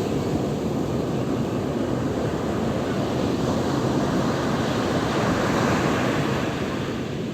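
Sea surf: waves breaking and washing up the shore in a steady rush, swelling louder about four to six seconds in.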